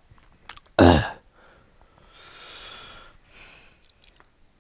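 A man's short, loud vocal sound, falling in pitch, about a second in, then two long breaths close on a clip-on microphone.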